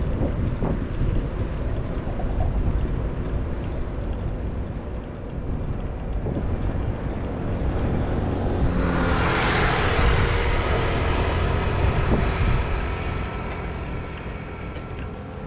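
City traffic rumble heard from a moving bicycle. About nine seconds in, a vehicle passes close with a rising hiss and a steady whine, which fade over the next few seconds.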